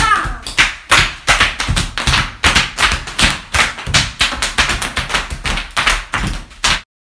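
Bubble wrap popping under children's bare feet as they stomp and jump on it: many sharp pops in quick, irregular succession, several a second, that cut off suddenly near the end.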